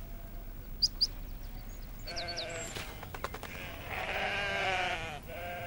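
Sheep bleating: several drawn-out, wavering calls, the longest and loudest about four seconds in. A few brief high peeps of ducklings cut in about a second and two seconds in.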